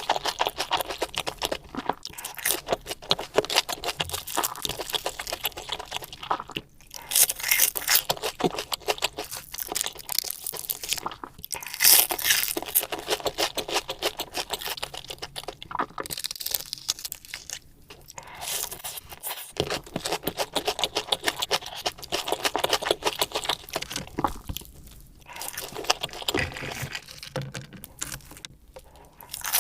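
Close-miked eating sounds: crunchy bites and chewing, a dense run of irregular crackling clicks with a few louder bursts of crunching.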